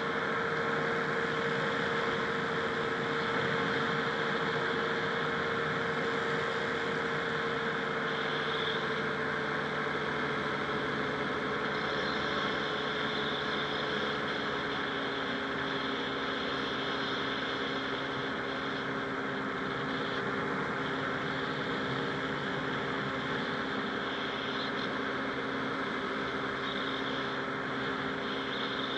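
Rotax 582 two-stroke twin of a Buckeye powered parachute running steadily. Its note drops a little about halfway through and then holds at the lower pitch.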